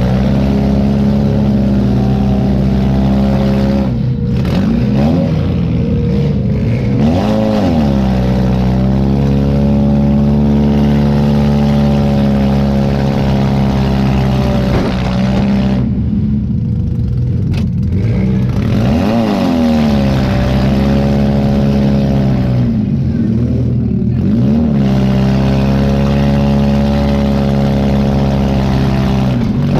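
Demolition derby car's engine heard from inside the stripped cab, revving up and falling back again and again as the car is driven, with several brief drops where the throttle is let off.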